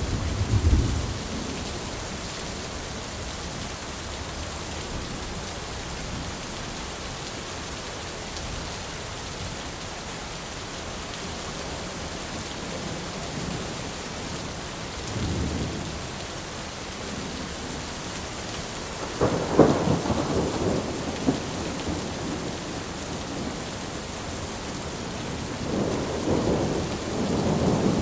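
Thunderstorm: steady heavy rain hiss with rolls of thunder. A low rumble fades about a second in, a short one comes around the middle, a sharp crack of thunder rumbles on a few seconds later, and another roll builds near the end.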